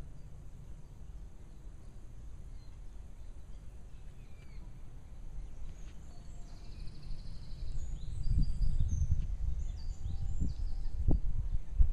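Wind rumbling on the microphone, gusting harder about two-thirds of the way in, with small birds chirping and trilling high above it.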